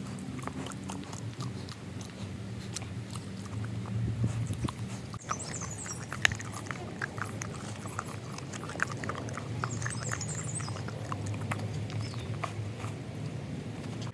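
A Leonberger dog licking and chewing on a piece of meat, making many short wet mouth clicks and smacks.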